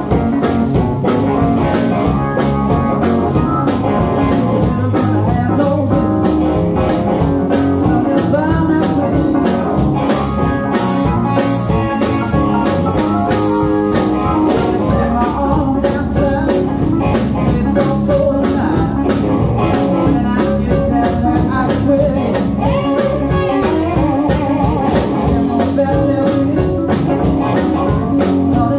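A live blues band playing: electric guitar, electric bass, drum kit and keyboard, loud and continuous.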